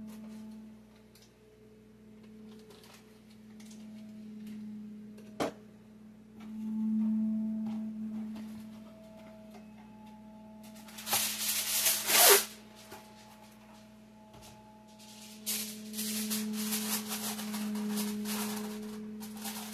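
Reynolds Wrap aluminum foil pulled off the roll and torn loudly about eleven seconds in, then crinkled and folded for several seconds near the end. A steady low hum runs underneath.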